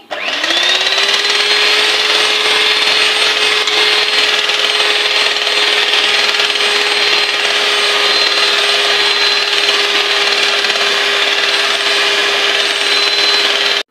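Electric mixer whipping cream: the motor spins up over the first half second, then runs at one steady pitch with a high whine above it, and cuts off suddenly at the end.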